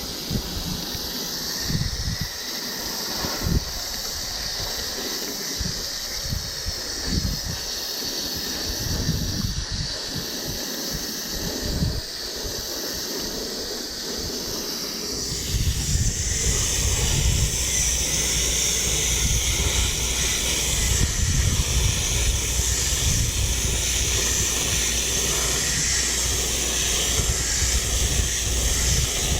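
Water from a garden hose spraying against an air conditioner's condenser coil, a steady hiss. About halfway through the spray gets louder and brighter.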